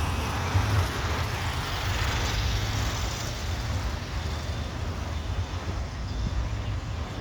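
Jet engine noise of a Boeing 737-300F's CFM56-3 turbofans as the freighter flies past on approach: a broad rushing roar that swells about two seconds in and then slowly fades, over a low rumble.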